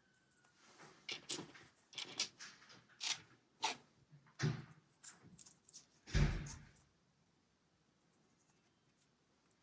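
Plastic LEGO pieces clicking and knocking as they are handled and pressed together: a string of short sharp clicks, with two heavier knocks in the middle, stopping about seven seconds in.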